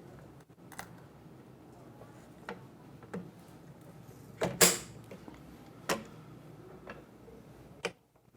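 Scattered clicks and light taps of small tools working against a smartphone while its heated glass back is pried off, with one louder sharper click about halfway through.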